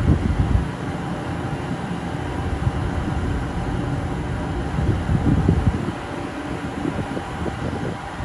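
Steady low rumble of shipyard machinery and wind, with gusts buffeting the microphone at the start and again about five seconds in.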